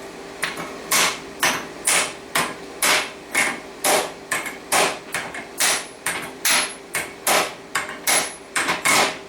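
Hammer striking a steel canister held in a vise, beating its end closed for a canister forge weld: steady, even blows at about two a second.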